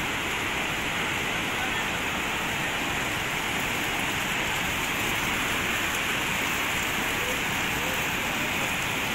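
A river in flood: fast, muddy water rushing past as a steady, unbroken noise.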